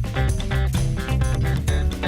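Background music with a steady beat and plucked guitar-like notes, in a swing or jazz style.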